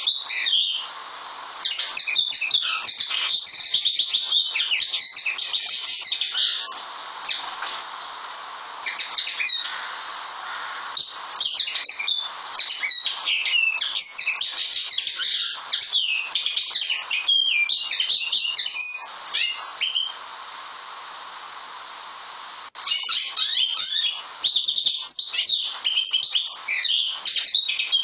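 Common linnet singing: several long phrases of fast, varied twittering, with short pauses between them.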